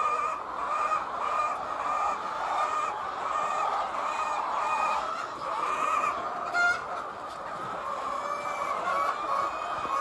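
A large flock of laying hens clucking and calling together, a continuous overlapping chorus of short repeated calls, with one louder, sharper call about two-thirds of the way through.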